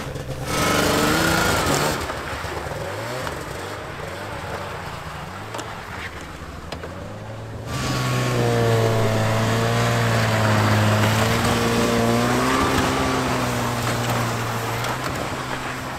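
Snowmobile engine revving up about half a second in, then running and pulling under load, its pitch rising and falling from about eight seconds on.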